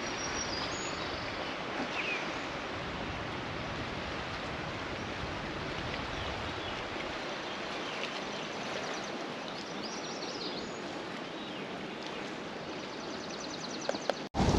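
Steady rush of flowing water, with a few faint bird chirps.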